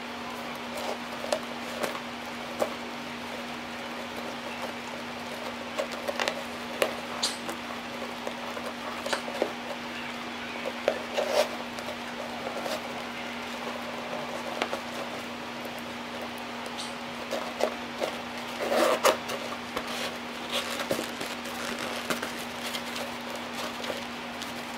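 Hands handling a leather and canvas bucket bag and its leather cord strap: scattered soft rustles, taps and clicks, busier about three quarters of the way through, over a steady low hum.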